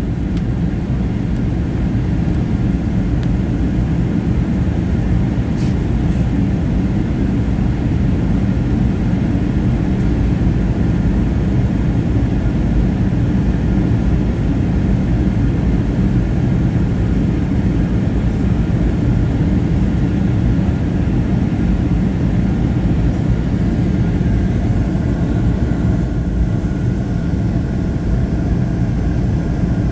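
Steady cabin noise of a Boeing 737-800 on its descent, heard from inside the cabin: a low, even rumble of airflow and its CFM56-7B jet engines, with faint steady engine tones above it.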